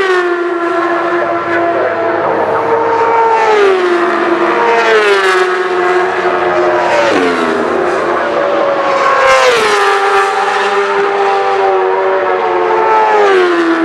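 Superstock racing motorcycles going past at full speed on a road course, one after another, the engine note dropping in pitch as each bike passes.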